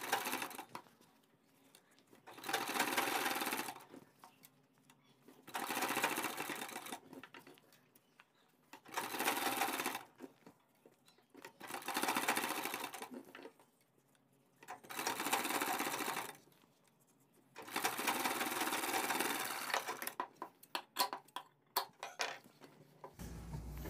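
Domestic straight-stitch sewing machine stitching in short runs: six bursts of a second or two each, about three seconds apart, as piping is sewn down along a neckline. A few sharp clicks follow the last run.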